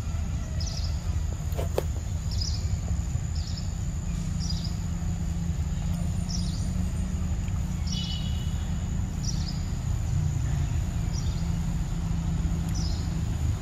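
Outdoor ambience: a steady low rumble, with a bird giving short high chirps about once a second over a thin, steady high tone. A single sharp click comes just under two seconds in.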